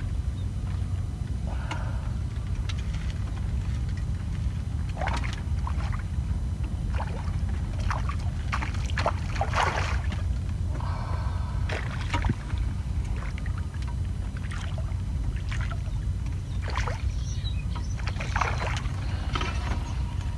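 Hooked fish splashing and thrashing at the water surface in short, irregular bursts while being played toward a landing net, over a steady low rumble of wind on the microphone.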